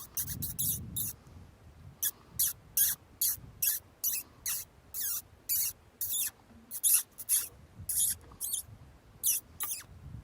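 Predator call playing mouse distress squeaks: short, high-pitched squeaks, some falling in pitch, about two to three a second, with a brief pause about a second in.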